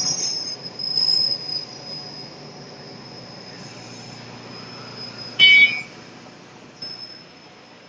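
Automatic feeding machine running, with a steady high whine, short squeaks near the start and a brief, loud, high-pitched squeal about five and a half seconds in.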